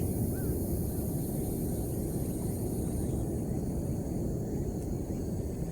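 Steady low rumble of outdoor background noise, with a short chirp about half a second in.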